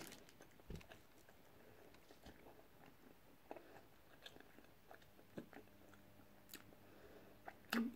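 Faint chewing by a person eating, with a few scattered soft mouth clicks.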